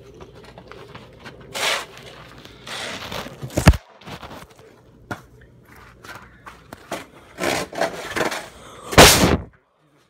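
Handling noise right on the phone's microphone: scraping, rubbing and knocks, with a sharp loud thump about three and a half seconds in and a longer loud rubbing burst near the end.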